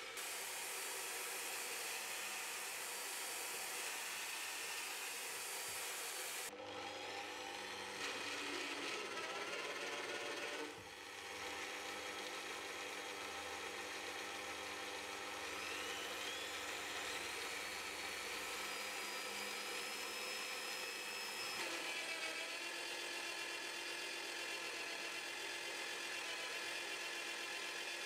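Bosch benchtop drill press running, its Forstner bit boring into a block of Tasmanian oak: a steady motor whine with the hiss of chips being cut. The tone shifts abruptly a few times, and rises for a few seconds in the second half.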